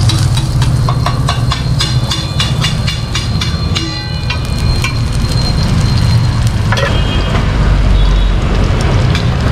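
A metal ladle clinking and scraping on a flat steel griddle (tawa), in quick strokes with a short metallic ring, during the first four seconds or so, as chopped onion fries in oil. Under it runs a steady low rumble.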